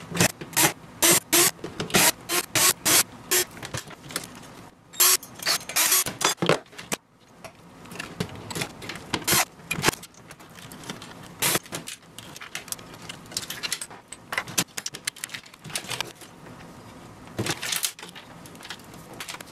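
Rapid metallic clicks, clatter and scraping, dense for the first seven seconds and then sparser: screws and metal parts handled as a PC motherboard is unscrewed and lifted out of a steel rack-mount case.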